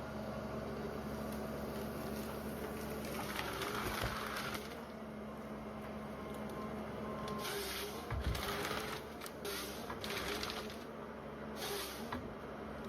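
Logging machine running steadily with a constant low hum, broken several times by short bursts of hiss and by a low thump about eight seconds in.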